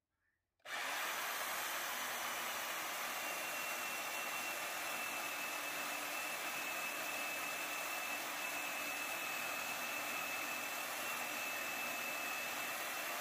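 Electric jigsaw cutting into a steel bar clamped in a vise: steady motor and blade noise with a thin high whine, starting suddenly about half a second in.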